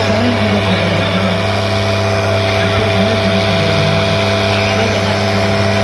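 Arjun 555 and Harsh 575 diesel tractors running steadily at high engine speed under heavy load as they pull against each other in a tug-of-war, with crowd voices beneath.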